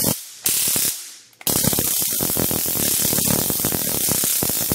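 Handheld stun gun arcing against the metal frame of an iPhone X: a loud, rapid electric crackle. It comes in two short bursts in the first second and a half, then runs continuously.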